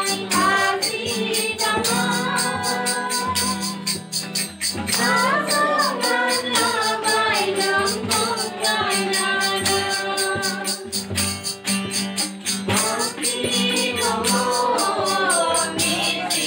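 A small group of women and children singing a hymn together in unison, with acoustic guitar accompaniment and a steady rattling percussion beat.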